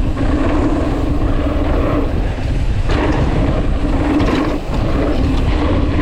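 Wind rushing over the microphone of a mountain bike at speed, with a steady low rumble of tyres rolling on a dirt trail.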